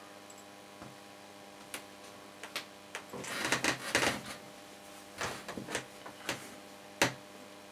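RF torch discharge (plasma flame) on a GU-50 vacuum-tube generator, running with a steady buzzing hum made of several tones. Irregular crackles break over the hum, with a dense run of crackling around three to four seconds in and a single sharp pop about seven seconds in.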